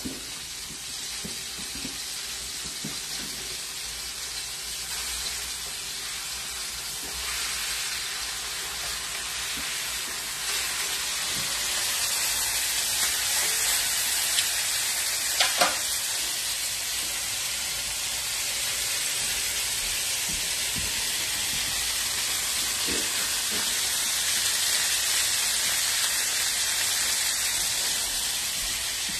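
Ribeye steaks sizzling in a stainless steel sauté pan, a steady frying hiss that grows louder about a third of the way through. There is a single light knock near the middle.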